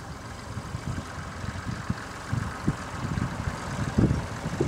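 Tractor engine running, with uneven low chugging and a stronger thud about four seconds in.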